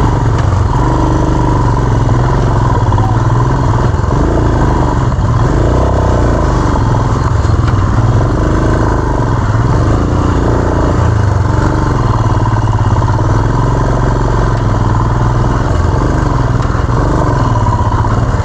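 Motorcycle engine running while riding off-road, its revs rising and falling over and over as the throttle is worked, under a steady low rumble.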